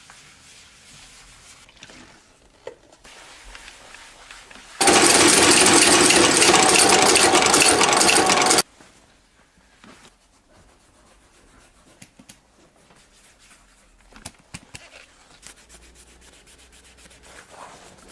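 Shoe-repair workshop work noise: a loud, rough, steady machine or abrasive sound lasting about four seconds in the middle, with light scattered clicks and taps before and after it.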